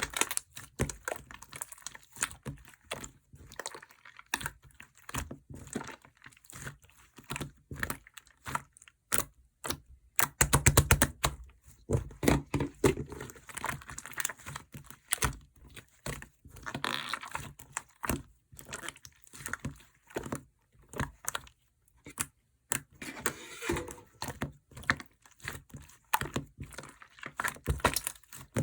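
Green slime being squished, stretched and pressed by hand, making many irregular sticky clicks and crackling air-bubble pops, with a quick run of pops about ten seconds in.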